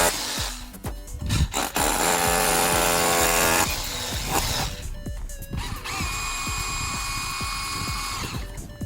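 Background music with a power drill running in spells, one longer spell with a dense whirring noise about two seconds in and a steady whine later on.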